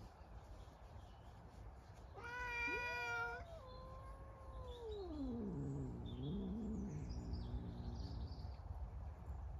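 Tomcats caterwauling at each other in a standoff. About two seconds in comes a loud, high yowl, briefly overlapped by a second yowl rising in pitch. Then one long call slides steadily down into a low, wavering moan.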